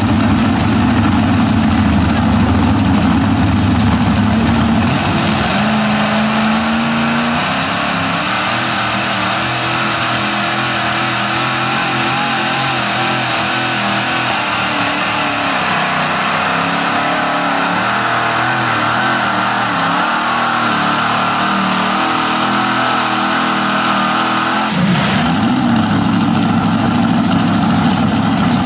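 Supercharged pulling tractor's engine under full load on a hook. Its note rises about five to seven seconds in and holds high and steady, then drops suddenly near the end as the throttle is cut at the end of the pull.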